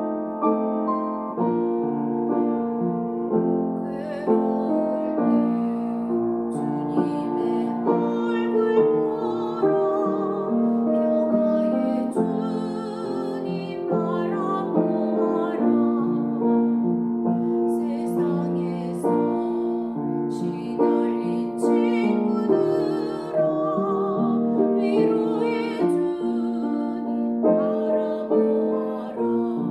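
A woman sings a Korean hymn solo with vibrato over a piano accompaniment. The piano plays alone for the first few seconds before her voice comes in.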